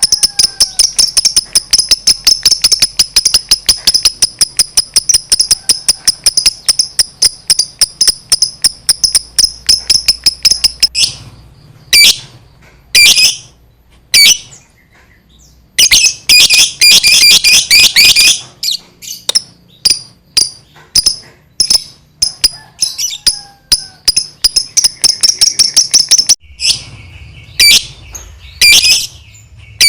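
Lovebird singing 'ngekek': a long, fast chattering trill of high-pitched chirps repeated in quick succession. It runs unbroken for about eleven seconds, then continues in shorter bursts with brief pauses between them.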